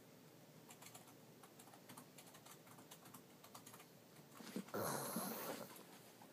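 Computer keyboard typing, a run of light quick clicks, then about four and a half seconds in a sleeping pug gives one loud, drawn-out snore, the loudest sound here.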